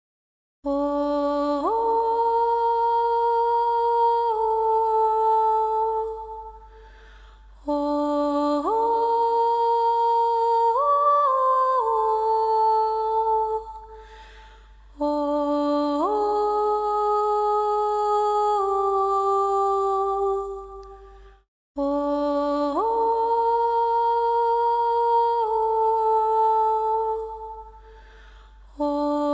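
A hum-like droning voice on the soundtrack: four long held phrases, each sliding up in pitch as it begins, holding steady for about five seconds and stepping down a little before it fades, with short pauses between them.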